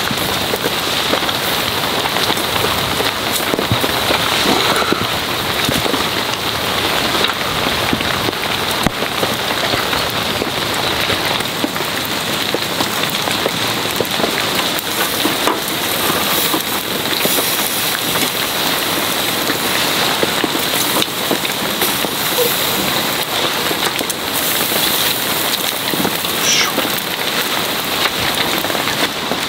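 Heavy rain falling steadily on the tent's tarp overhead: a dense, even patter of drops.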